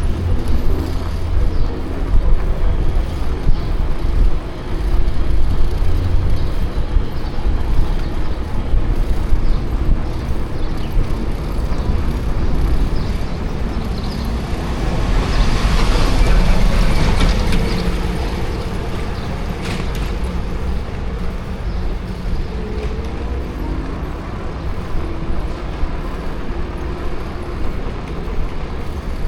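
Road traffic: a steady low rumble of passing vehicles, with one louder vehicle going by about halfway through.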